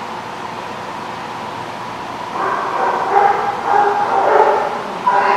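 Small dogs barking in short, repeated high-pitched calls, starting a little over two seconds in, over steady background room noise.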